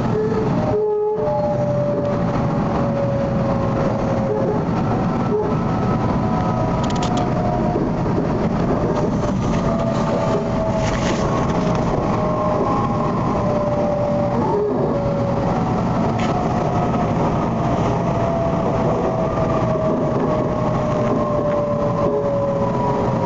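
Electric passenger train heard from inside the carriage: a steady running rumble with a whine of several tones that fall slowly in pitch as the train slows into a station, and a few faint clicks from the track.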